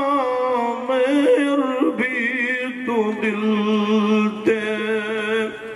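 Unaccompanied male voice singing a Punjabi naat through microphones, drawing out long ornamented notes with a wavering vibrato. A steady low note is held underneath through most of the second half.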